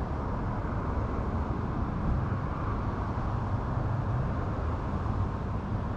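Steady road traffic noise, an even low rumble with no single vehicle standing out.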